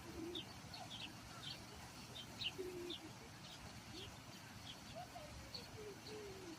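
Birds calling: many short high chirps, several a second, with a few lower drawn-out calls sliding in pitch underneath.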